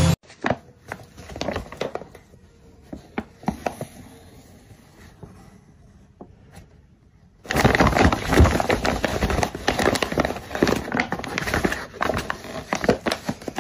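Brown paper bag crinkling and rustling as a cat moves inside it. Sparse, soft crackles at first, then loud, dense crinkling from about halfway through.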